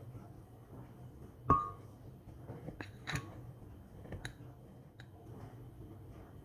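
A few sharp clinks and clicks of kitchenware, the loudest about a second and a half in with a short ringing tone, then several lighter taps over the next few seconds.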